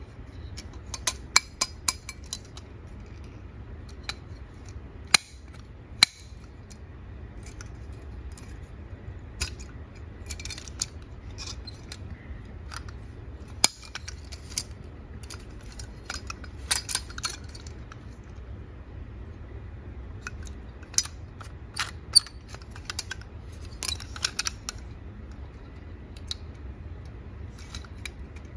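Small metal and plastic clicks and clatters from a toy Volvo BM 5350 articulated dump truck being handled and turned over in the hands, its joints and parts shifting. The sharp clicks come in scattered clusters over a low steady hum.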